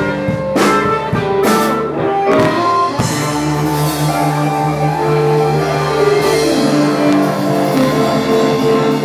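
Live blues band playing, with sharp guitar and drum hits for about the first three seconds, then long sustained notes held as one chord.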